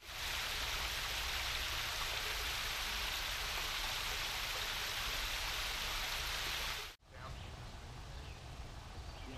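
Small waterfall spilling over a stone ledge into a stream: a steady rushing splash that cuts off abruptly about seven seconds in, leaving a much quieter woodland ambience.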